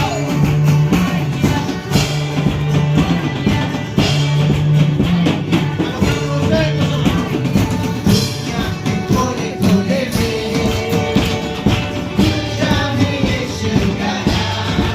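Worship song with singing over a steady percussion beat.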